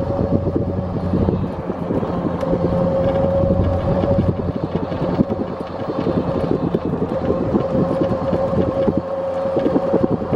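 A vehicle moving slowly along a paved road, with a steady hum over rough low noise. The hum drops out for a few seconds in the middle.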